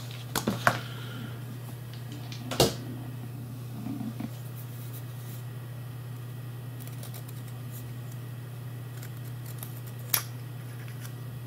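A few sharp clicks and light ticks of small metal parts being handled as the brass eyepiece is worked out of the aluminium body of a Soviet ID-1 dosimeter pen, over a steady low hum.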